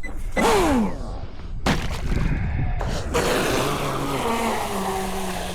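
Brushless electric motor of a Blackjack 24 radio-controlled catamaran whining under throttle. A short falling whine comes about half a second in, then a sharp knock. From about three seconds in there is a steady hiss, with a whine that steps down in pitch as the boat runs away.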